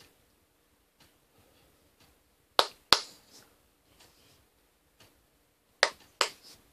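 Hands striking together as someone signs: two pairs of sharp slaps, the first pair about two and a half seconds in and the second near the end.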